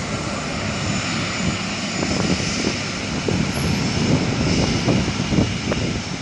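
Twin jet engines of a Boeing 777-200 running loud as the airliner turns onto the runway: a steady rushing noise with an irregular low, crackly rumble underneath.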